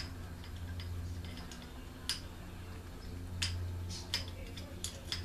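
A handful of sharp, irregular metallic clicks and taps as small parts are fitted by hand to a Homelite chainsaw engine's cylinder and crankcase, over a steady low hum.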